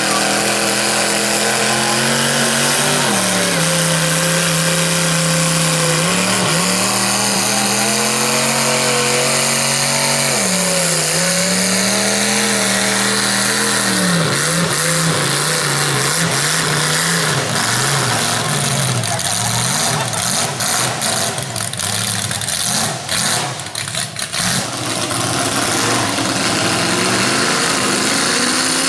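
A lifted S-10 mega truck's engine revs hard as its paddle tires spin in deep mud, the pitch climbing and sagging several times. Mud sprays alongside it. Later the sound turns choppy, with brief drops in level.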